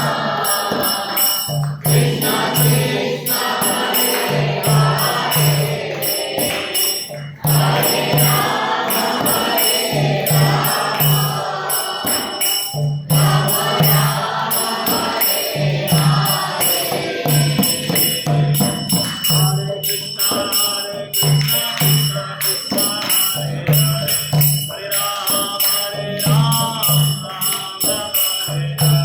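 Devotional group chanting (kirtan), with singing voices over small hand cymbals jingling in a steady rhythm and a repeating low beat.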